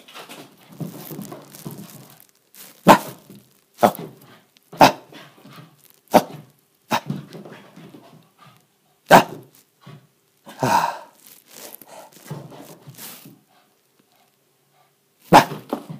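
Shiba Inu puppy barking in play: short, sharp single barks about a second apart, one drawn-out bark about eleven seconds in, then a brief lull and one more bark near the end.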